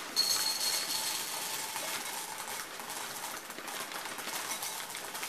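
Dry French Toast Crunch cereal poured from a plastic bag into a ceramic bowl: a steady rattling patter of small crunchy square pieces hitting the bowl and one another.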